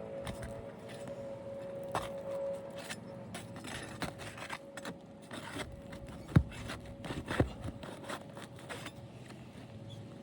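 Hand tool working under asphalt roof shingles to free their nails: a run of scraping and clicking, metal against shingle and nail, with two sharp knocks a second apart past the middle.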